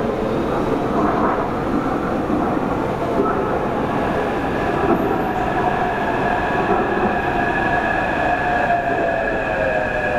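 Metro train running, a steady rumble and rush with a high whine held throughout and a lower whine that slowly falls in pitch in the second half.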